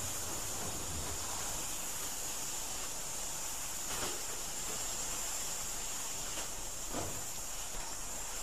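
Steady hiss of escaping steam from a steam locomotive, with a faint knock about halfway through and another near the end.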